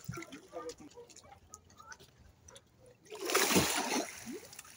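Tarpon splashing at the water's surface, with a loud splash about three seconds in after quieter small water sounds.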